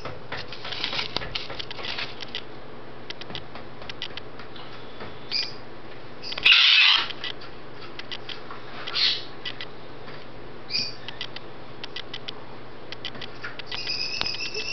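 Goffin's cockatoo clambering about a hanging rope-ring toy: scattered light clicks and rustles of beak and claws on rope and paper, with one louder half-second rustle about six and a half seconds in. The cockatoo gives a few short high-pitched calls, near the middle and again near the end.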